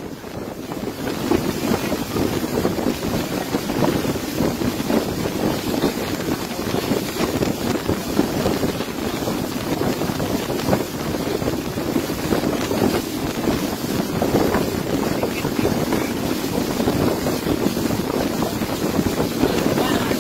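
Speedboat running at speed across open sea: a steady rush of engine and water against the hull and spray, with wind buffeting the microphone.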